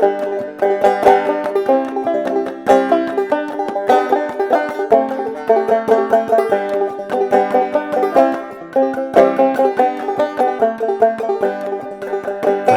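Solo banjo played clawhammer style, a rhythmic instrumental break of the folk tune with a steady stream of plucked notes and brushed strums.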